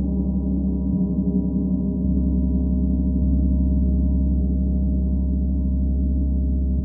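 Paiste symphonic gong sounding a sustained, deep wash of many overlapping tones with a fast throb, with no separate strikes standing out.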